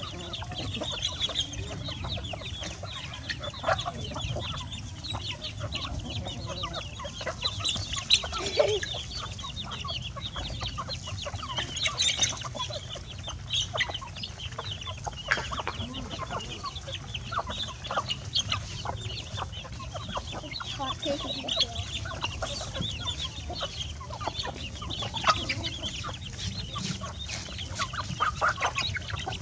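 A flock of chickens clucking as they feed, with many short ticks and brief calls throughout.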